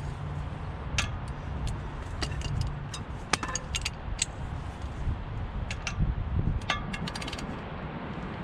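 Irregular sharp metallic clicks and clinks of hand tools working a bolt extractor socket on a rounded-off 12-point drive shaft bolt as it turns loose. A steady low hum runs underneath.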